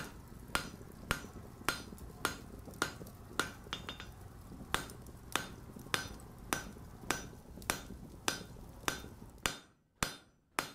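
Blacksmith's hammer striking an anvil in a steady rhythm, a little under two blows a second, each blow ringing brightly. A low hum runs underneath and stops shortly before the end.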